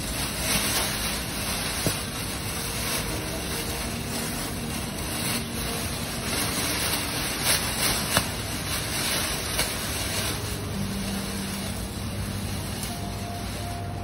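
Wind blowing steadily while a large plastic bag flaps and rustles in it, with a few sharp crackles of the plastic.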